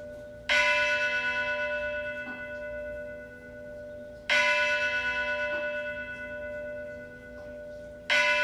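A single church bell tolling slowly, struck three times about four seconds apart. Each stroke starts sharply and rings on with a wavering hum as it fades.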